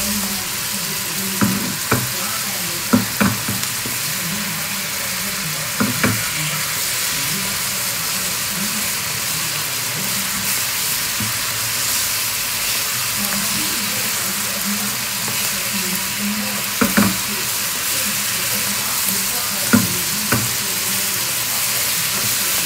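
Spinach leaves and stems sizzling in a non-stick frying pan while a silicone spatula stirs them, with a steady hiss and a few short knocks of the spatula against the pan.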